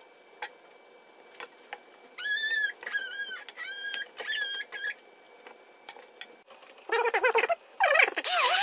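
Metal spoon and fork clinking against cooking pots as cooked meat and beets are moved into a pot of potatoes, with five short high-pitched squeaks in the middle. Near the end a louder, pitched sound starts as a stick blender goes into the pot.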